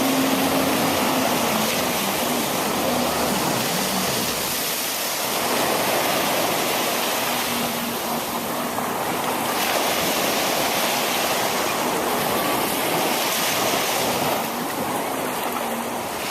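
Ocean surf washing in steadily, with wind on the microphone.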